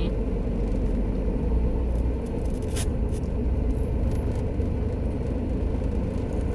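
Steady low rumble of a car, with a faint click about three seconds in.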